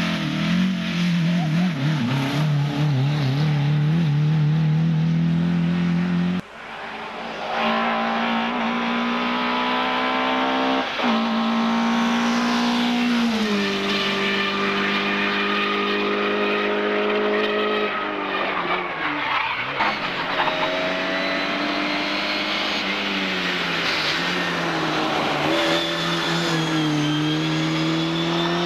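Competition car engines at high revs, their pitch climbing and dropping through gear changes and braking. A hard cut to another car comes about six seconds in.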